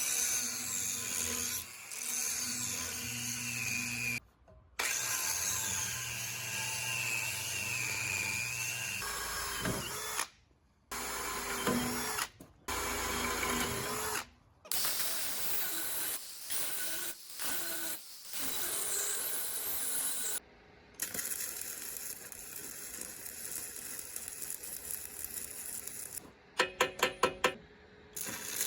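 Power-tool work on a tractor's front axle, heard as a string of short clips cut together: a tool's motor whines and wavers in pitch as it works the metal. Near the end comes a quick run of evenly spaced sharp knocks, the loudest sound here.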